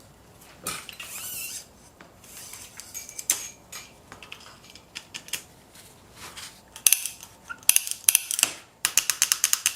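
Small metal clicks and scratchy scrapes of hand work on a road bike's shifter and shift cable, ending in a quick run of rapid clicks.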